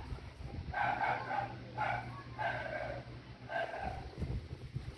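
A dog barking: four short, high-pitched barks about a second apart.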